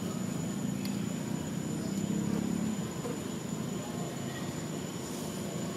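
Steady low rumble of a distant engine, swelling a little about half a second in and easing off about three seconds in, with a faint steady high whine above it.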